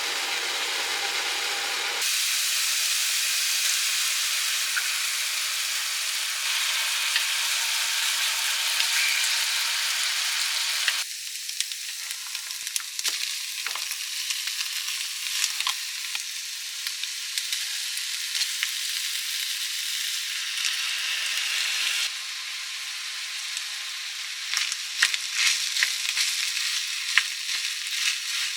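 Food sizzling as it is stir-fried in a frying pan, with the clicks and scrapes of a spatula stirring it in the second half. The sizzle changes level abruptly a few times where separate shots are joined.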